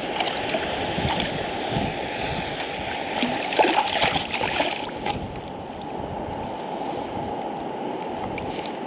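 Water sloshing and lapping around a landing net held in choppy shallow sea water, with a cluster of splashes about three and a half to five seconds in.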